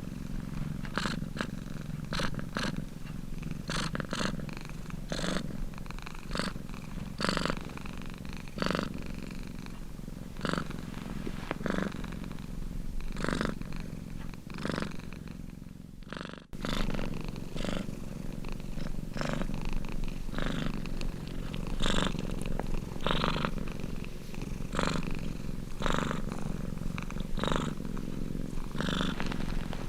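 Domestic cat purring steadily, with a regular pulse of about one to two surges a second as it breathes in and out. The sound drops out for a moment about sixteen seconds in.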